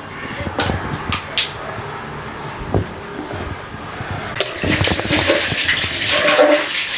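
Water running from a tap, starting about four and a half seconds in, with a few light knocks before it.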